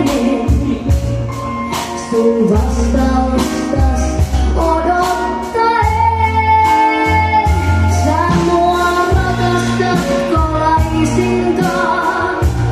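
A woman singing live into a microphone with a band of drums and keyboards, her voice holding long notes over a steady beat.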